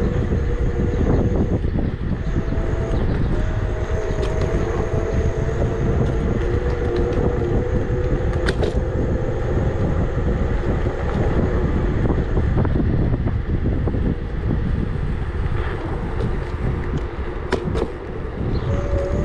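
Electric scooter ride: wind buffeting the microphone, with the Emove Cruiser's hub motor whining and rising slowly in pitch as it speeds up, then fading about two-thirds of the way through. A couple of sharp knocks come from the ride over bumps.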